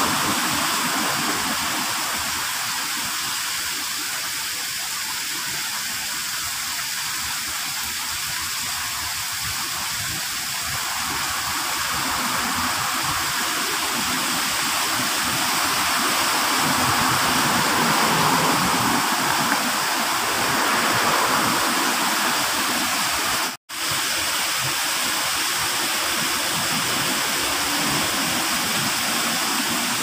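Water from a stacked-rock garden waterfall splashing steadily down into a shallow pond. The sound cuts out for an instant about three-quarters of the way through.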